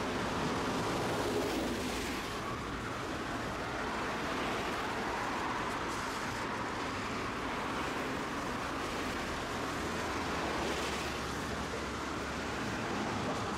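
Tosaden streetcar running along its track, a steady rumble of wheels and motor heard from inside the car.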